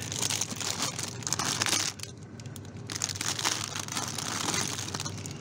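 Plastic packaging crinkling as a pack of tomatoes is handled, in two spells of about two seconds each with a short pause between.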